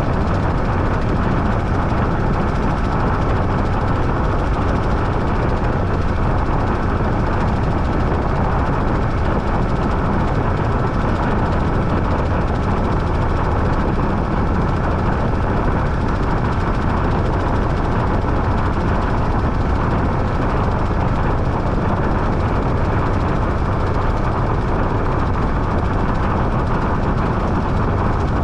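Washing machine running with a steady, even rumble.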